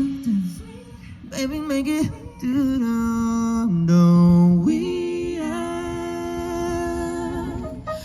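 A solo singing voice holding long wordless notes with little or no accompaniment, stepping from pitch to pitch with vibrato in places, and ending on one note held for about three seconds.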